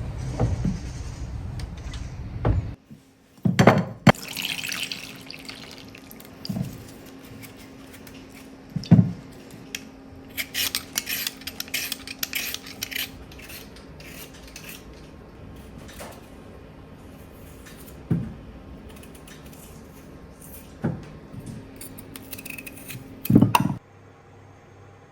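Kitchen work at a sink: water runs from a tap in short spells while pots, pans and utensils clink and knock. A faint steady hum sits underneath.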